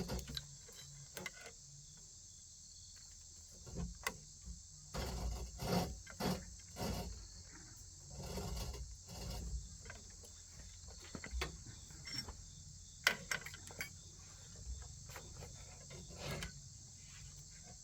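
Steady high insect chirring in the background, broken by scattered knocks and low thumps, with one sharp click about thirteen seconds in.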